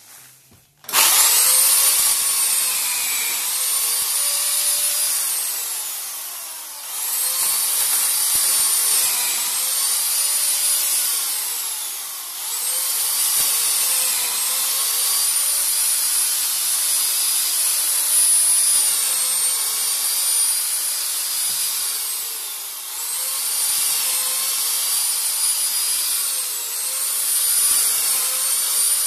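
An electric chainsaw mounted upside down under a sawhorse starts about a second in and runs at speed, cutting through a branch. The pitch of its whine sags each time the chain bites into the wood and climbs again as the chain frees, and the motor eases off briefly three times.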